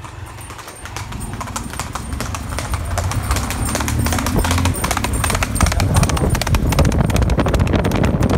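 A horse's hooves striking a paved road at a fast gait, a rapid run of clattering hoofbeats that grows louder as the horse approaches and passes close.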